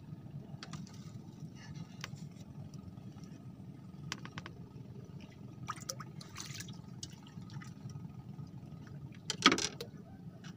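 Water lapping and sloshing around a floating fish-cage raft over a low steady rumble, with scattered small clicks of fishing tackle being handled and one short, louder sound about nine and a half seconds in.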